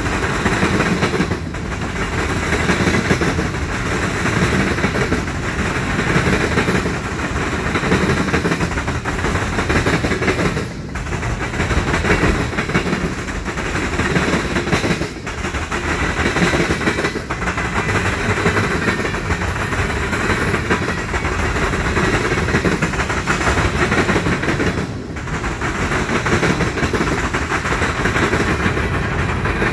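Freight train rolling past: a string of covered hoppers, boxcars and tank cars running on steel wheels over the rails. It makes a loud, continuous rumble that dips briefly a few times.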